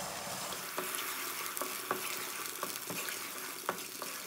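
Wooden spoon stirring sugar, water and oil in a nonstick kadai over heat, knocking lightly against the pan about nine times over a steady sizzling hiss as the sugar syrup starts to cook.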